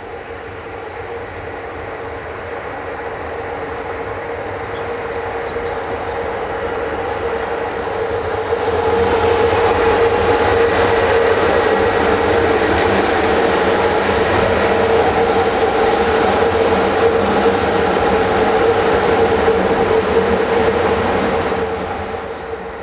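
Class 40 (LE 5100) electric locomotive approaching and passing close by, with a steady hum over the rumble of the running gear. It grows louder over the first eight or nine seconds, stays loud as it goes past, and falls away near the end.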